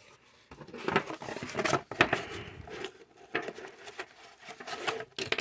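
Cardboard packaging being handled: irregular rustling, scraping and small clicks as plastic toy gun accessories are worked free of a cardboard insert and its tabs.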